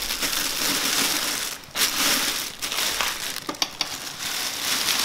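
Plastic packing wrap crinkling and rustling as it is handled and lifted off a saxophone in its case, dropping off briefly about a second and a half in, with a few light clicks later on.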